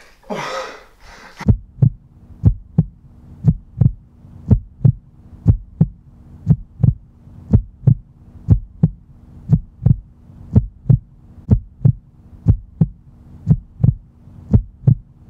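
Heartbeat sound effect: a low lub-dub double thump about once a second over a steady low hum, stopping abruptly at the end. It opens with a brief noisy sweep falling in pitch.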